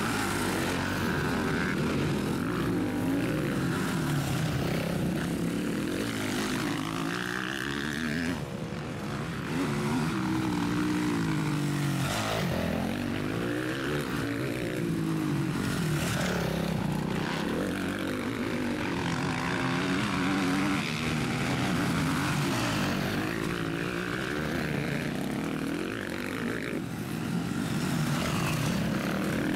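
Several motocross bike engines revving hard as the bikes race past on a dirt track, their pitch rising and falling over and over as riders open and close the throttle and shift gears, with several engines overlapping.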